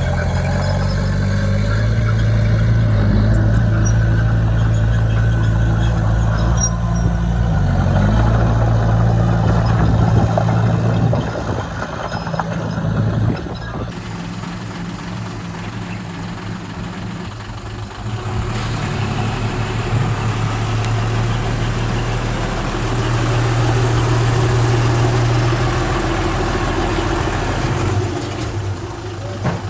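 Diesel engines of heavy construction machinery running, a steady low engine note. About fourteen seconds in the sound changes abruptly to another engine with more hiss.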